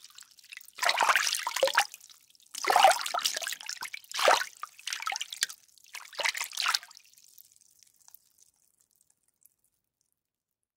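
Water splashing in about five separate bursts, one after another, over the first seven seconds. Faint dripping follows and dies away a couple of seconds later.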